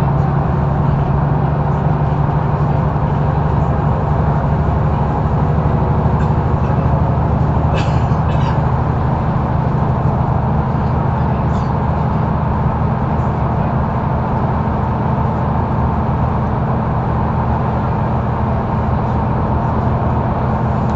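Mercedes-Benz O530 Citaro intercity bus heard from inside the cabin while driving: a steady diesel engine drone at an even pitch under road noise, with a brief rattle of clicks about eight seconds in.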